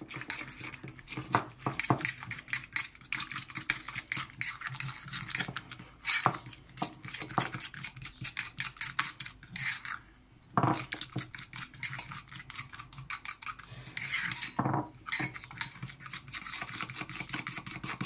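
Metal cutlery stirring thick cream with lemon juice in a ceramic bowl: rapid scraping and clinking against the bowl, with a brief pause about ten seconds in. The cream is being turned into sour cream.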